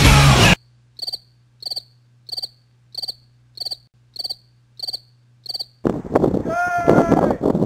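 Music cuts off about half a second in, then cricket chirps: eight short, evenly spaced chirps, about one and a half a second, over a faint low hum. A voice comes in near the end.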